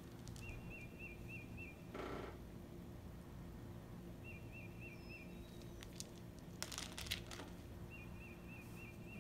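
A bird calling faintly over a low steady hum: a quick run of four or five identical chirps, repeated three times about every four seconds. Soft handling noises break in, a rustle about two seconds in and a few light clicks around six to seven seconds in, as cotton-gloved hands handle small lumps of dragon's blood resin.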